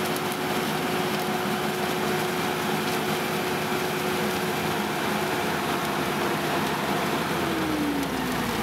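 John Deere 5510N tractor running with its mounted vineyard leaf remover, whose rollers pull in and shred the leaves: a steady machine drone with a steady hum, which falls in pitch over the last second or so.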